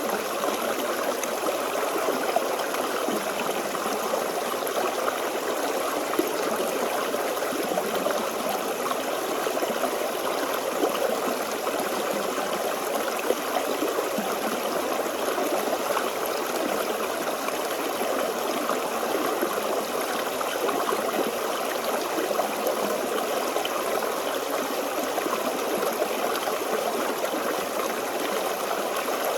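Forest stream flowing steadily over stones, a continuous babble and trickle of water.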